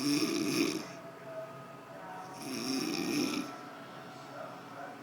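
A person snoring: two snores about a second long, one at the start and another a little past halfway, roughly two and a half seconds apart.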